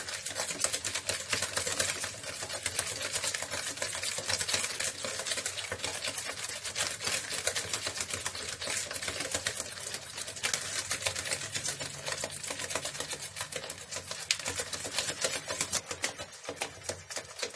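Hand whisk beating eggs and sugar in a bowl: a fast, steady rattle of clicks as the wires strike the bowl.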